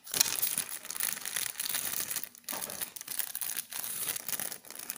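Clear plastic packaging crinkling loudly as it is handled and opened, with short pauses about halfway through and near the end.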